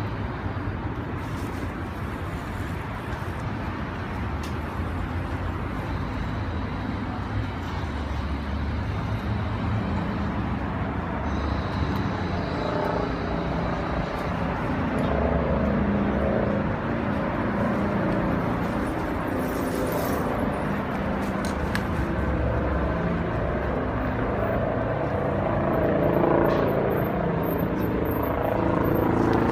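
Steady low rumble of vehicle noise, with indistinct voices in the background over the second half.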